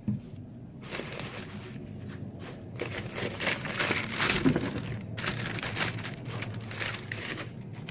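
Shoe-box packaging, tissue paper and wrapping, crinkling and rustling in irregular bursts as it is handled.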